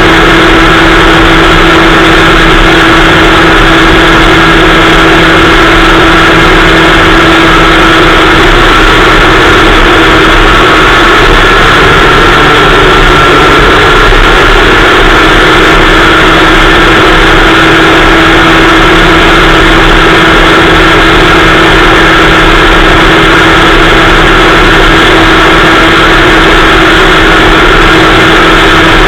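Kid Kart's small two-stroke engine running at a steady, nearly unchanging pitch, very loud on the kart-mounted microphone, with a slight dip in pitch about halfway through.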